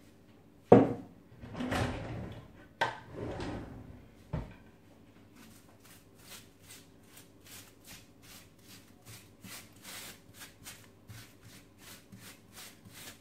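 Hands rubbing and smoothing cling film stretched over a slab, a regular run of short crinkly rubbing strokes about three a second. Before that, in the first four seconds or so, come three sharp knocks and two louder crinkling rustles of the film.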